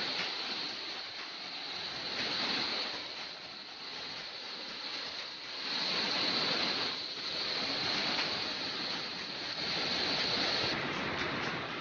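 Steady rushing noise, with a thin high steady tone above it that cuts off near the end.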